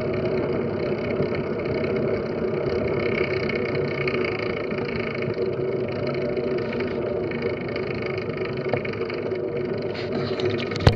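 Steady rolling noise from a fixed-gear track bike riding on a velodrome's concrete apron, mixed with wind rushing over the microphone. There is a single sharp click just before the end.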